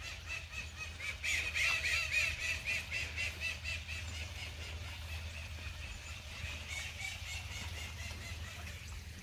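Birds calling: a quick run of high, repeated squealing notes starts about a second in and lasts a few seconds, then fainter calls follow.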